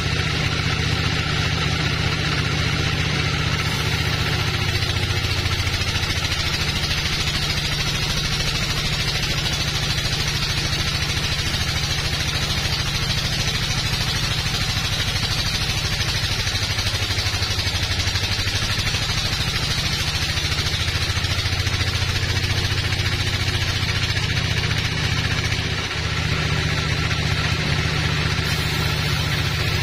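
Sawmill band saw running steadily and sawing through a teak log: a low machine hum under the hiss of the blade cutting the wood, with one brief dip near the end.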